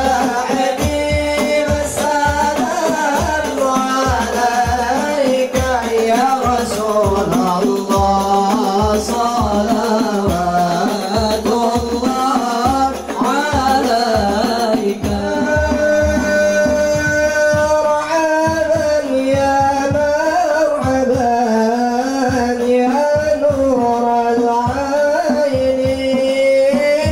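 Male group singing an Islamic devotional sholawat in long, ornamented lines, accompanied by hand-struck rebana frame drums keeping a steady beat.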